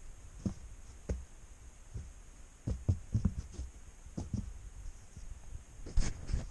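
Irregular soft thumps and knocks: a cluster of them about three seconds in and a sharper one about six seconds in.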